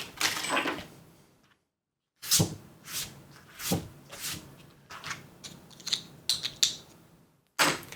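Hand-handling noises on a workbench: a string of separate clacks, knocks and rustles as objects are picked up and moved, with short gaps between them.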